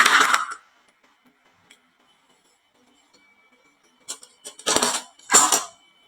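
Background music ends about half a second in; after a quiet stretch, marbles clack and rattle on a wooden HABA marble run: a couple of sharp clicks, then two short, louder rattles.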